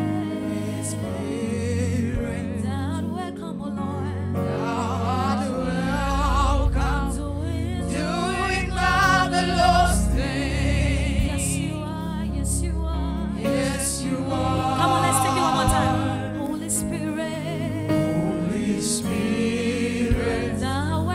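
Gospel worship song: a female lead vocalist sings with a group of backing singers over sustained instrumental chords and bass.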